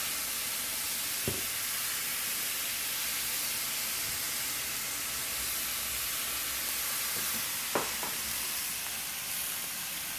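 Ground beef frying in a hot pan, a steady sizzle, with two brief light knocks, about a second in and again near the end.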